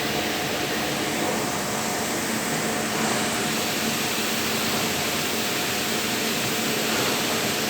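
Factory machinery running: a steady hum with a few held tones under an even hiss.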